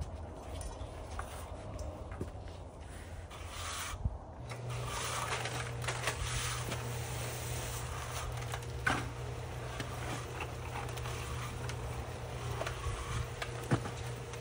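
Scraping and rubbing noises with scattered clicks, joined about four seconds in by a steady low hum that keeps going.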